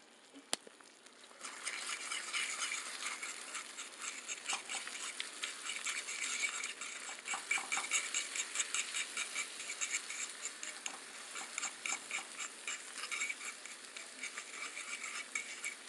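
Close-miked ASMR eating sounds: chewing and mouth noises as a dense, irregular run of small clicks and crackles, starting about a second and a half in.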